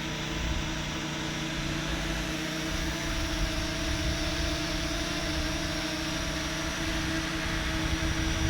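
Parrot Anafi quadcopter's propellers whining steadily as it flies close by, several pitches holding and wavering slightly, over a low, uneven rumble.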